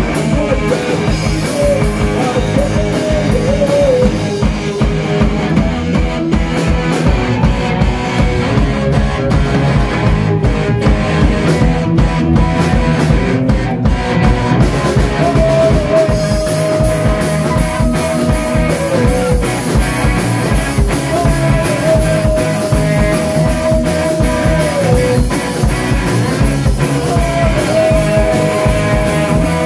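A live punk rock band playing loudly: distorted electric guitars, bass guitar and a pounding drum kit. In the second half a long held note comes three times, each sliding down at its end.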